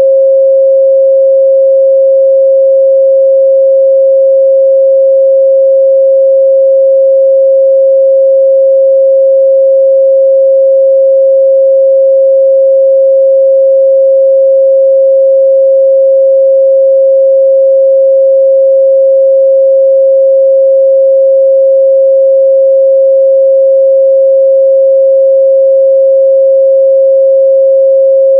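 A steady, loud 538 Hz sine-wave test tone, one pure unwavering pitch with no other sound.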